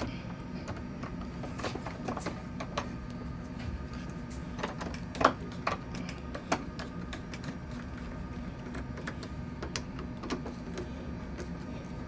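Hand screwdriver driving a small screw into a mortise lock's cover plate: scattered light metallic clicks and scrapes, a few sharper ones about five to six and a half seconds in, over a steady low hum.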